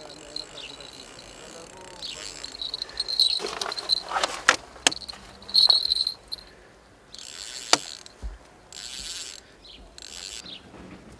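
Insects chirping in repeated high-pitched pulses through the first half, with a few sharp clicks and, later, three short bursts of hiss.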